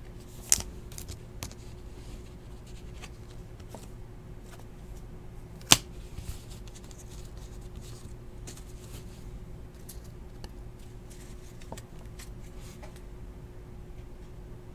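Basketball trading cards being flipped through and sorted by hand: scattered light slides and taps of card stock, with one sharp snap about six seconds in.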